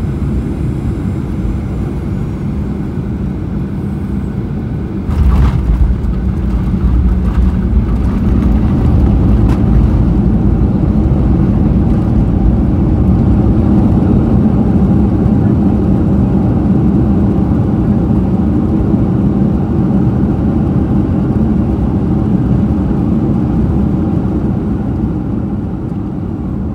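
Boeing 737-800 landing, heard from inside the cabin: a steady engine and airflow rumble, a sudden thud about five seconds in as the wheels touch down, then a louder rumble of the landing rollout that builds for several seconds and slowly eases toward the end.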